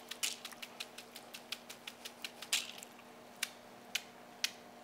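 Cold, wet noodles being handled: light clicks and taps, a few a second at first and then thinning out, with a couple of longer soft swishes.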